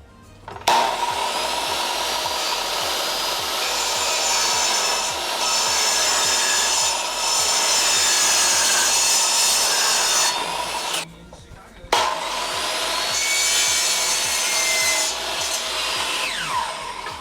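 Electric power saw cutting through the wooden cabinet top, in two long passes with a short break about eleven seconds in. The motor winds down, falling in pitch, near the end.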